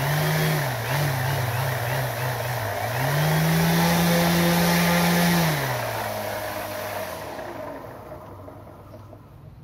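An RC model airplane's motor spins its propeller and is throttled up and down several times. The pitch is held high for a couple of seconds about three seconds in, then the throttle comes back and the motor and propeller wind down and fade.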